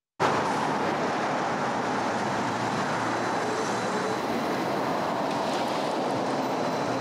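Steady outdoor street ambience: a continuous, even rush of distant city traffic, cutting in abruptly at the start.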